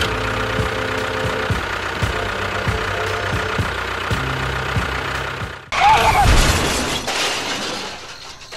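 A small motor running with a steady hum. About five and a half seconds in it cuts off suddenly and a louder, noisier sound takes over, then fades away.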